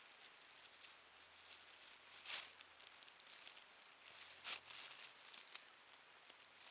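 Thin plastic bags crinkling softly as a cat shifts among them, with two louder crackles about two and four and a half seconds in.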